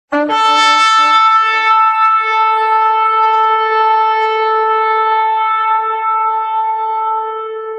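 Shofar blown in one long blast. For the first two seconds it flips between a lower and a higher note, then it holds the higher note steadily, growing weaker near the end.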